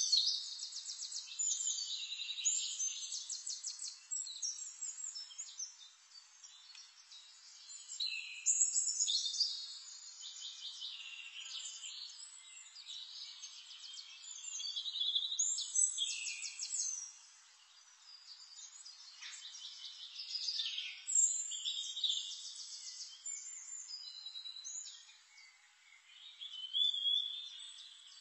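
Birds chirping and trilling in bursts that rise and fade every few seconds, all high-pitched, with rapid trills among short chirps.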